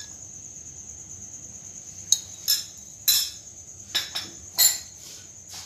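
Several light clinks of a spoon against dishes, starting about two seconds in, over a steady high-pitched drone.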